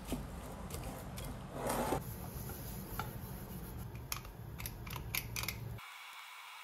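Plastic cling wrap rustling and crinkling as it is stretched over a glass mixing bowl, loudest in one burst about two seconds in. A run of light, sharp clicks and taps follows, and near the end the sound drops to a faint steady hiss.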